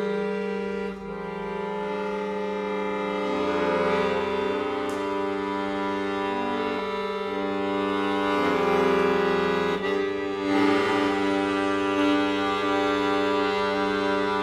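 Piano accordion playing slow, sustained chords in a free improvisation, the held harmonies shifting to new notes every few seconds, with a brief dip in level near the start and again about ten seconds in.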